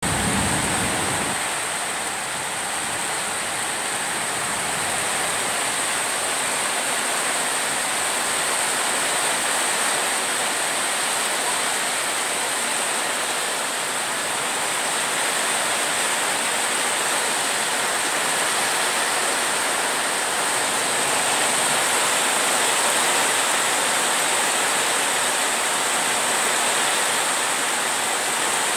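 Heavy rain pouring steadily.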